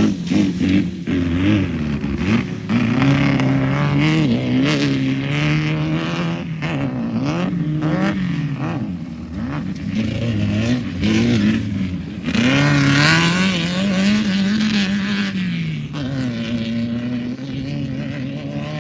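Off-road race vehicle's engine revving hard, its pitch climbing and dropping again and again as it accelerates and lifts off, with short sharp noises scattered through the first half.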